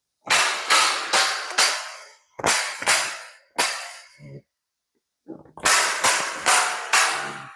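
Loud metal bangs in quick runs of two to four, about two a second, each ringing briefly, with a short pause in the middle: feral hogs crashing into the steel panels of a trap and livestock trailer.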